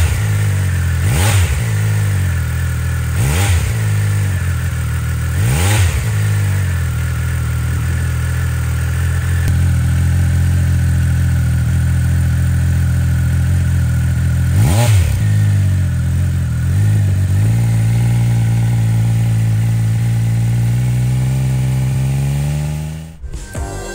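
Triumph Speed Triple 1200 RS inline three-cylinder engine idling through an SC-Project SC1-R GT carbon slip-on silencer. It is blipped sharply several times in the first six seconds and again about fifteen seconds in, and it cuts off abruptly near the end.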